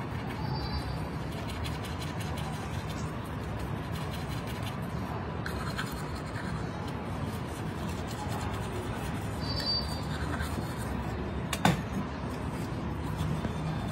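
Toothbrush scrubbing teeth in steady back-and-forth strokes, with one sharp click near the end.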